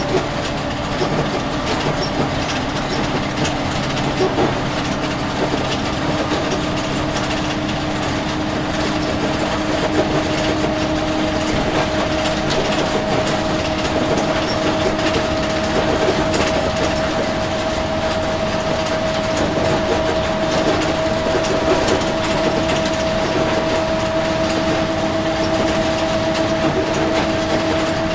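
Empty school bus heard from inside while driving: steady engine and road noise with a drivetrain whine that slowly rises in pitch, over a constant light rattling of the bus body.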